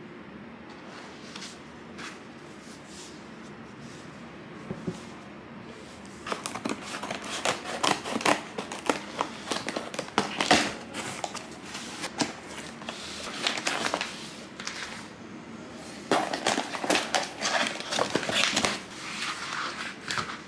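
Paperback book pages turning softly. Then a cardboard shipping box is cut open along its packing tape with a pen point, giving a long run of scraping, tearing and crackling of tape and cardboard. Near the end comes more rustling as plastic packaging is handled.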